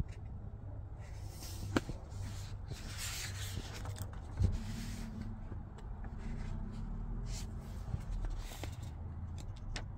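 Paper pages of a printed manual being handled and turned, rustling, with a few light clicks, over a steady low hum.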